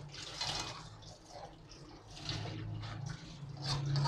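Slotted metal spatula stirring thick, wet chicken korma gravy in an aluminium karahi: a string of uneven wet sloshing strokes with light scrapes against the pan, over a steady low hum.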